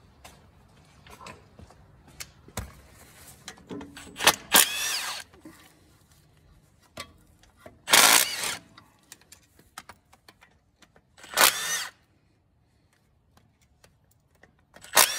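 Cordless power tool running in several short bursts, each spinning up with a rising whine, as it undoes the 13 mm bolts on a tractor's hydraulic control valve side cover.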